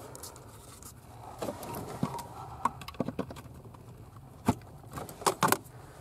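Light rustling and scattered plastic clicks from a door chime module and its wiring connector being handled under a truck's dash, with a few sharper clicks in the second half.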